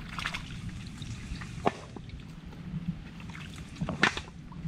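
Shallow muddy water sloshing and trickling, with scattered small clicks and splashes and a sharper tick or two, over a faint steady low hum.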